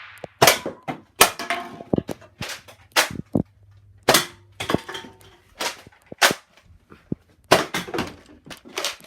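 Nerf blasters firing, with foam darts striking targets: an irregular series of about a dozen sharp pops and clacks.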